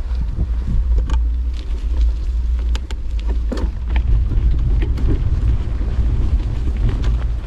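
Wind buffeting the microphone, a steady low rumble, with scattered sharp clicks and rattles throughout.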